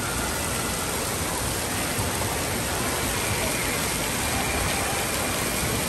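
Steady rush of water at an indoor water park: an even, unbroken wash of noise with no distinct events.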